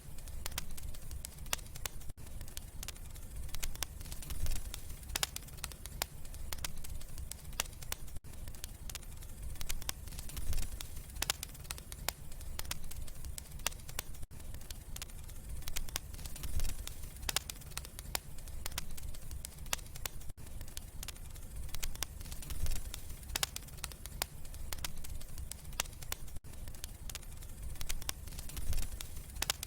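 Wood fire crackling in a fireplace: frequent sharp pops and snaps over a low steady rumble of the flames, with a brief dropout about every six seconds where the loop repeats.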